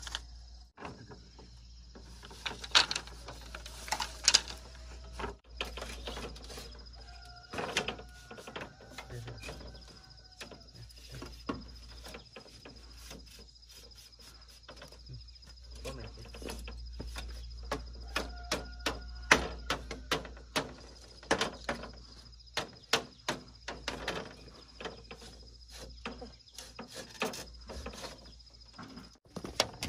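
Sharp, irregular knocks of a hammer tapping split bamboo slats onto a bamboo pole frame, with the hollow slats clattering against each other as they are laid; the strikes often come in quick runs of several.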